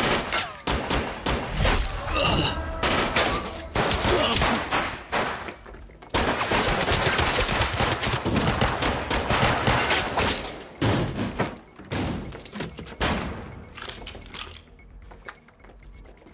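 Gunfight: many gunshots in quick succession, with a long run of rapid, continuous fire in the middle. The shots then become scattered and die away near the end.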